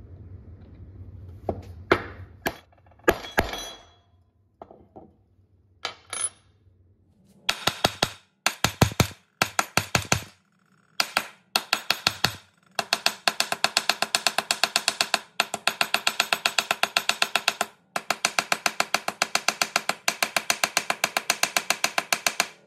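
Small metal hammer tapping the copper rivets of a leather hammer loop. A few separate knocks come first, then long runs of quick, even taps, several a second, broken by short pauses.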